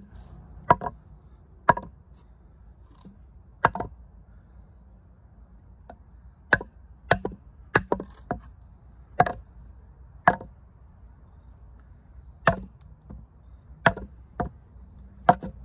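Wooden baton striking the spine of a D2-steel fixed-blade bushcraft knife, the Holtzman's Gorilla Survival Bushwhacker, driving the blade into a hard log to cut a V-notch. About a dozen sharp wooden knocks come at irregular intervals, some bunched close together near the middle.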